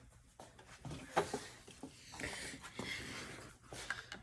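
Faint handling noise: a few light clicks and a soft scraping rustle, about a second in and again in the middle, from small tools and plastic parts being handled.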